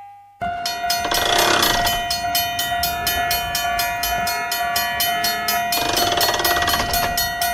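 Level-crossing alarm and train sound effects: a steady high tone under rapid, evenly spaced clicks. Two brief rushes of noise come about a second in and near the end.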